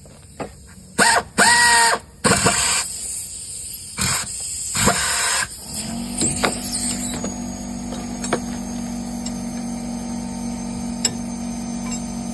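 Air-powered impact wrench in several short loud bursts, one with a rising whine, loosening the 18 mm caliper bracket bolts on a truck's front brake. A steady motor hum takes over about six seconds in.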